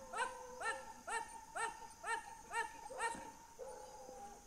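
Hunting dogs baying at a paca, a regular run of about seven barks at roughly two a second that stops about three seconds in, with a held drawn-out tone beneath. Insects buzz steadily at a high pitch.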